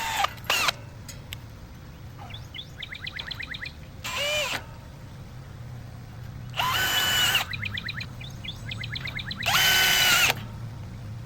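Cordless drill/driver running in four short bursts a few seconds apart, each a steady whine, the later ones longer: driving screws to mount a MagnaLatch gate-latch receiver.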